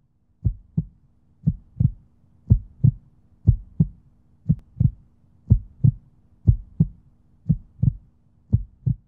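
Heartbeat sound effect: paired low thumps (lub-dub) about once a second, nine beats in all, over a faint steady low hum.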